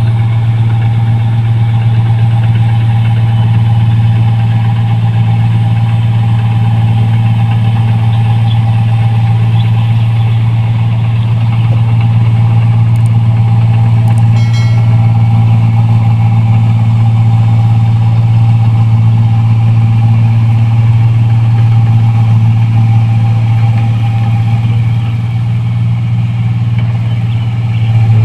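New Holland 1545 combine harvester running at a constant engine speed: a loud, steady deep hum with a fainter higher whine over it.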